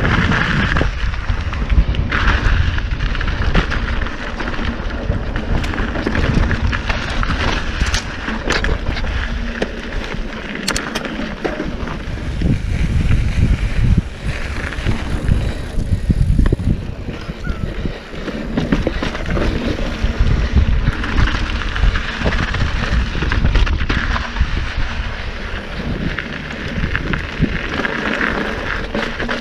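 Mountain bike ridden fast down a dirt and rock singletrack: wind buffeting the microphone over tyre noise on dirt, with frequent small knocks and clatters from the bike on the rough ground.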